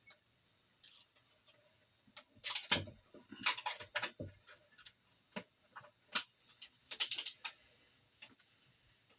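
Protective liner being peeled off the self-adhesive back of a silicone heater pad: irregular crackles and crinkles of plastic film, with a few louder rustling bursts.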